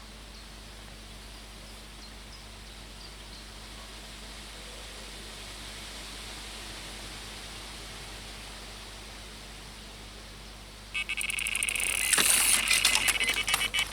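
Steady wind noise. About eleven seconds in, a loud, rapid mechanical ratcheting starts, carrying a high-pitched tone.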